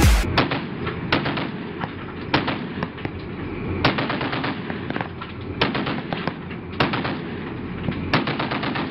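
Heavy machine gun firing from a ship's mount, with a sharp report about every second and a half and fainter cracks between them.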